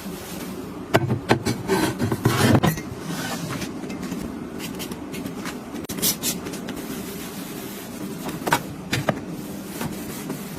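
Household objects being handled and set down: a cluster of knocks and clatters, then a few separate clicks, over a steady low hum.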